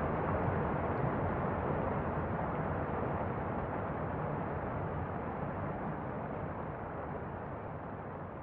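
Muffled underwater ambience: a steady, dull water noise with no high end, slowly fading out.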